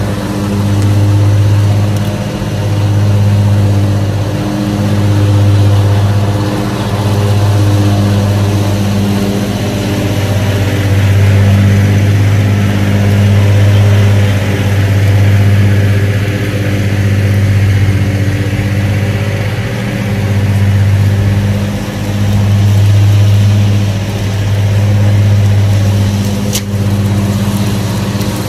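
Lawn mower engine running steadily, its drone swelling and dipping about every second and a half.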